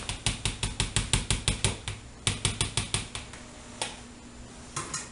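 Potato masher pounding boiled potatoes in a plastic bowl: a quick run of knocks, about six a second, a short pause, a second run, then a few single knocks near the end.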